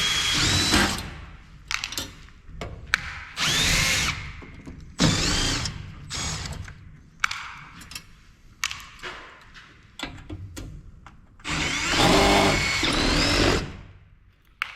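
Power driver backing screws out of a monitor's case: several short whirring runs, the longest near the end, its whine rising and falling in pitch as the motor speeds up and slows, with clicks and knocks of handling in between.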